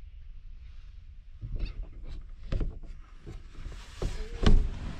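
Plastic latch handles of a boat's overhead cabin hatch clicking and knocking as the hatch is unlatched from inside and pushed open, a run of sharp clicks with the loudest knock about four and a half seconds in, over a low rumble.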